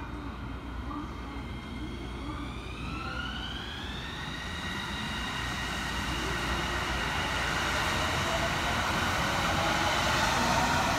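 Kobe Port Liner rubber-tyred automated guideway train pulling out past the platform, heading straight through the switch. Its electric motor whine rises in pitch for about two seconds, then holds steady over the rumble of the tyres, which grows louder as the train rolls by.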